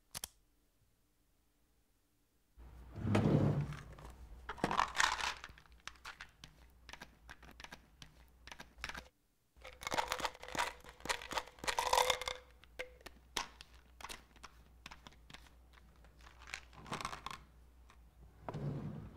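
Hands rustling, crinkling and tearing a soft material at close range, in irregular bursts with many small clicks. It starts a couple of seconds in, and the busiest stretch comes about ten to twelve seconds in.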